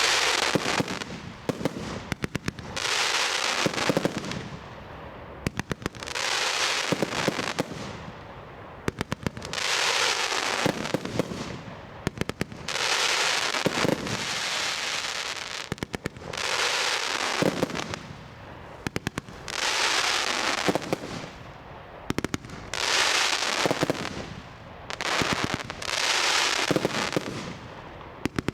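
80-shot firework barrage cake firing in volleys: each volley is a quick string of sharp launch cracks followed by about a second of bursting and crackling effects in the air, the cycle repeating roughly every three seconds.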